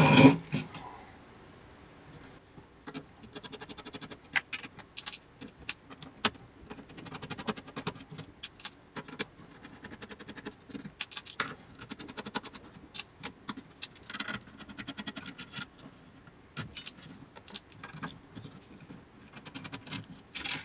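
Small metal clicks and clinks from hand-dismantling the connectors and wiring of an aircraft control box. There is a loud knock at the start, then scattered clicks and several runs of rapid ticking.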